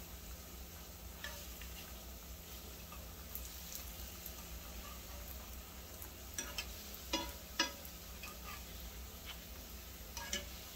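Tortilla chips frying in shallow oil in a skillet, a faint steady sizzle. A few short clicks of a metal fork against the pan and chips as they are turned come mostly in the second half.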